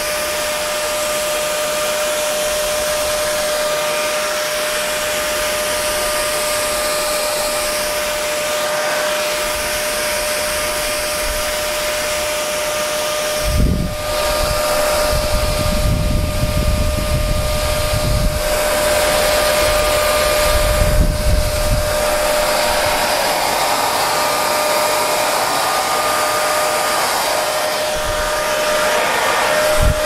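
Parlux 3500 hair dryer running steadily: a constant rush of blown air with a steady motor whine. Between about 14 and 22 seconds in, low rumbling gusts of air come and go.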